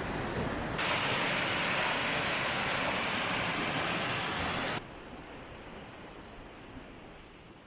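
Rushing water of a fast-flowing stream or waterfall, a steady rush that jumps suddenly to a louder, brighter roar about a second in and drops suddenly to a much quieter rush about five seconds in.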